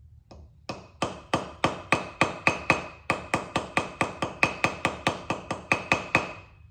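Small hammer peening the protruding pins of a knife over an anvil to rivet the knife together. The taps are light and quick, about four a second, each with a short metallic ring.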